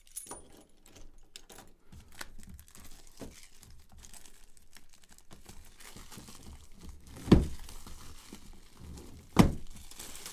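Plastic shrink wrap being cut and peeled off an aluminium carrying case, crinkling and tearing, with two louder thumps in the second half as the case is handled.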